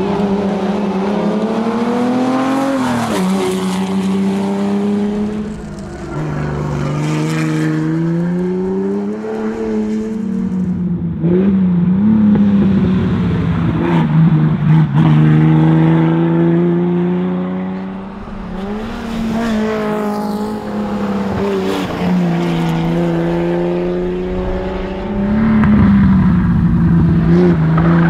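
GMC Jimmy special's engine driven hard under full acceleration. Its note climbs through each gear and drops back at every gear change, over and over.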